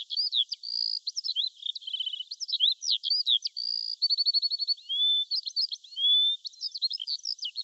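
A songbird singing a long, varied song of quick chirps and slurred whistles, broken by a couple of rapid trills.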